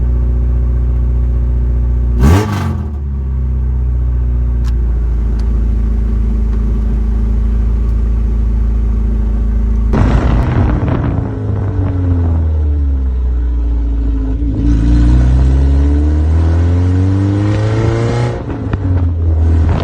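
Honda B20B four-cylinder engine running loud through a freshly fitted Skunk2 Alpha header that is not yet joined to the exhaust, on its first startup with the new header. It idles steadily with a quick rev blip about two seconds in, then is revved up and down repeatedly from about halfway, settling back to idle near the end.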